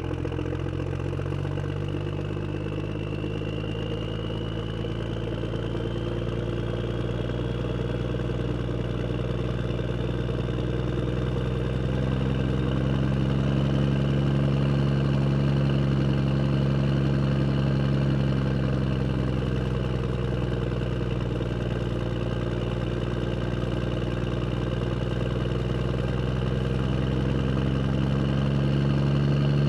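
Motor vehicle engine running steadily, its pitch rising slightly about halfway through and again near the end.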